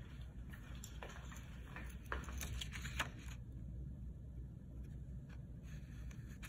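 A few faint clicks and taps in the first three seconds as a pencil is picked up and brought to a sheet of paper on a wooden table, over a low steady room hum.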